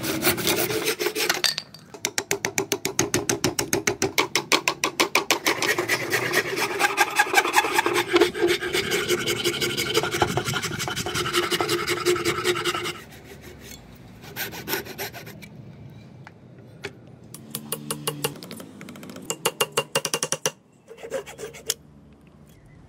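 A hand saw cutting through a block of hardwood, followed by a file worked back and forth over a wooden axe handle in quick, even strokes. After about 13 seconds the sound drops to quieter, short bursts of scraping strokes with pauses between them.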